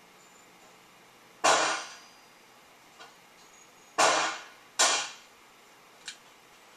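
Three .22 rimfire revolver shots from a Ruger Super Single Six, each with a short echo. The first comes about a second and a half in, then two more about two and a half seconds later, under a second apart. Faint clicks sound between the shots.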